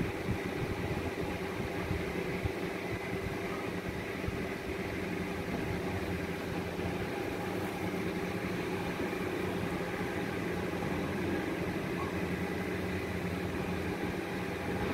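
Steady mechanical hum with a few held low tones over a noise floor, unbroken throughout.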